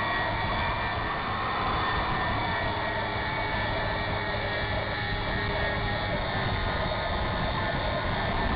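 Steady drone of a radio-controlled model airplane's motor and propeller, picked up by a camera mounted on the plane, with wind noise.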